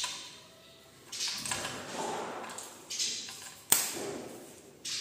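Blue PVC electrical insulation tape being pulled off its roll and wound around a bundle of wires, in about four pulls that each start sharply and fade over a second or so. A sharp click about three-quarters of the way through.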